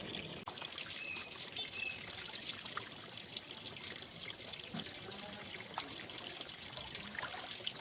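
Water trickling and splashing in a large plastic bin that people are soaking in, a steady wash of small drips and splashes.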